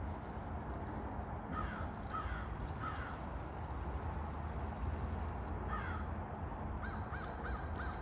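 Crows cawing off in the background: three caws, a single one, then a quick run of four near the end, over a steady low outdoor rumble.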